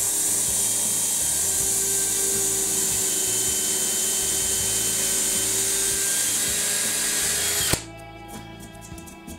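Cordless drill with a combination drill-and-countersink bit boring a countersunk hole through plywood, its motor running steadily and then stopping suddenly near the end.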